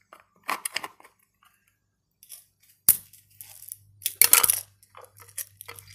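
Plastic fingerboard obstacle being handled and set down on the floor: a quick series of clicks and knocks, a sharp knock about three seconds in, and a louder cluster of knocks a second later. A low hum runs from the sharp knock onward.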